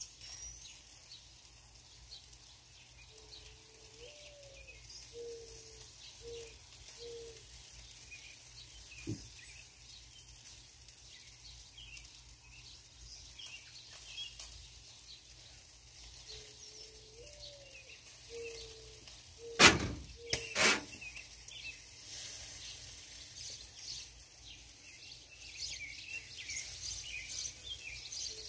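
Small birds chirping and twittering, with a dove cooing a low phrase twice: a rising note followed by three short ones. Two sharp knocks about twenty seconds in are the loudest sounds.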